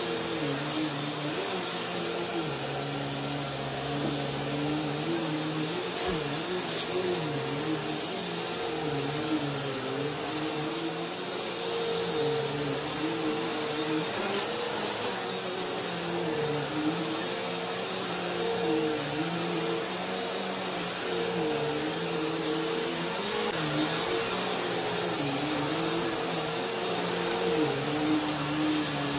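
Bissell bagless upright vacuum cleaner running steadily as it is pushed back and forth over a thick rug, with a constant high whine and a lower hum whose pitch wavers up and down every couple of seconds. A few brief clicks come about six seconds in and again near the middle.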